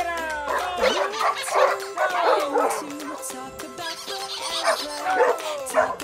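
Dogs yipping and whining in short gliding cries over background music.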